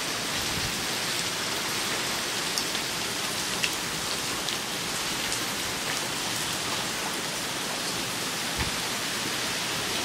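Heavy rain falling steadily, a dense even hiss, with a few louder drops striking close by as sharp ticks.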